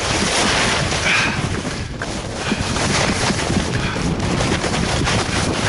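Skis sliding and scraping over soft, melting spring snow: a steady rough hiss broken by rapid crackling chatter, with wind buffeting the microphone.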